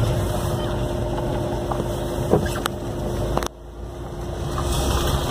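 Engine and road noise of a moving vehicle: a steady low rumble with a constant hum. The sound drops off abruptly about three and a half seconds in, then builds back up.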